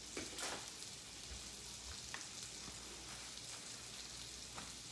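Thin beef steaks sizzling in a little vegetable oil in a frying pan on medium-high heat: a faint, steady hiss with a few soft pops.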